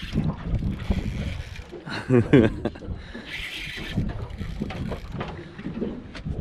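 Wind rumbling on the microphone and water lapping against a small boat's hull, with short hissing bursts every few seconds and a brief loud voice sound about two seconds in.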